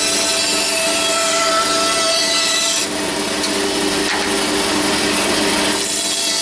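Bandsaw running and cutting a curve through particleboard: a steady machine hum with the hiss of the blade in the chipboard. The high hiss drops from about three seconds in and comes back near the end.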